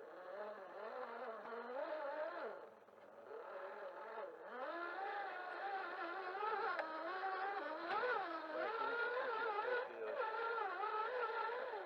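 Radio-controlled rock crawler's electric motor and gearbox whining, the pitch rising and falling with the throttle, with two short pauses about three and four seconds in.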